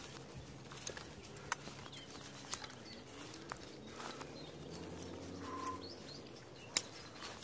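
Outdoor walking ambience: scattered sharp clicks and rustles, the loudest near the end, under a faint distant motorbike engine rising and falling in pitch for a few seconds in the middle. A few brief bird chirps.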